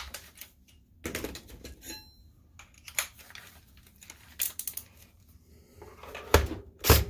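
Scattered clicks and light clatter of a tool being handled, then two heavier knocks near the end as a cordless drill-driver's bit is set onto a screw in the projector's plastic bottom case.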